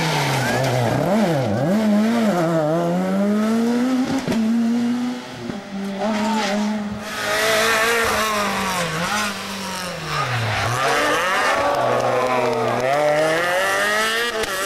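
Rally car engines at speed on a tarmac special stage. First a Peugeot 207 rally car: its revs drop sharply and blip several times as it brakes and downshifts into a hairpin, then climb as it accelerates away. After a cut about five seconds in, a Renault Clio rally car passes with its engine held high, revs falling and rising through gear changes.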